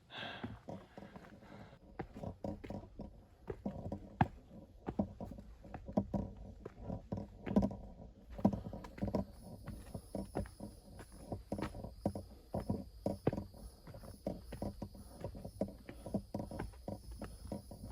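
Footsteps scuffing and knocking on a rocky mountain trail, several irregular thuds a second, mixed with the rustle of gear being carried.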